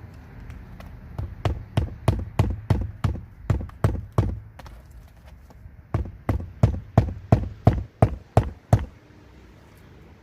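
Hammer driving nails: a quick, steady run of about a dozen blows, a short pause, then about ten more blows.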